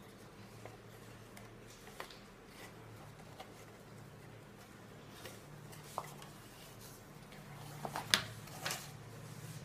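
Handmade cardstock photo card being unfolded by hand: soft paper rustles and small taps, with a sharper snap of card about eight seconds in, over a low steady background hum.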